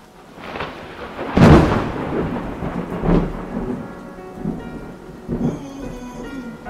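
Thunderstorm sound effect: steady rain with rolling thunder and a loud clap about a second and a half in. Soft music notes come in over the second half.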